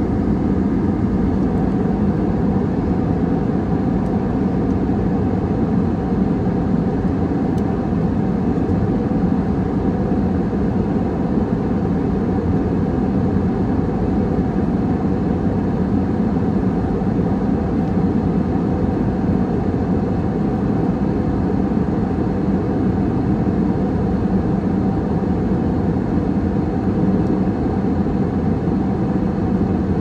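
Steady, low rushing noise of a jet airliner in cruise, engines and airflow heard from inside the passenger cabin.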